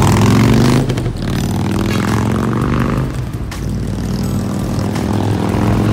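A motor vehicle's engine running close by. Its pitch rises and then falls away about a second in, and it settles into a steady low hum.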